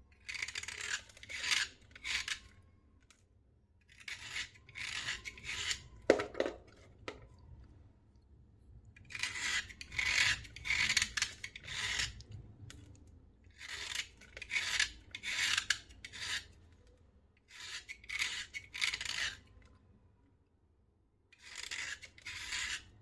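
Slate pencils being scraped with a dry rasping sound, in bursts of quick strokes with short pauses between them. There is a single sharp snap or knock about six seconds in.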